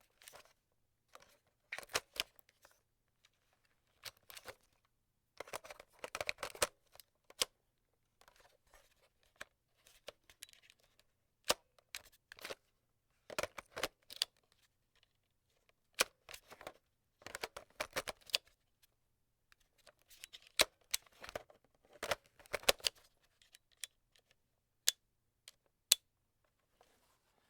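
A plastic cassette tape being handled and inserted into a player, again and again: clusters of plastic clicks, clatter and scraping a few seconds apart, with single sharp clicks between them.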